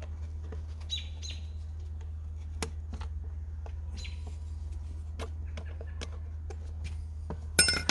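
Small irregular clicks and ticks as a screwdriver turns the chain-tension screw of a Makita 18V brushless top-handle chainsaw, with the chain links shifting on the bar as it is tightened. Birds chirp faintly in the background, and a short, sharp high-pitched sound comes near the end.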